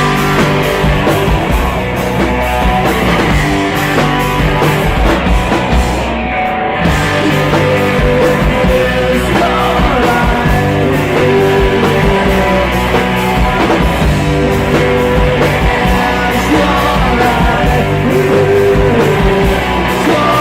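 A rock band playing live: electric guitar and drums with a steady beat.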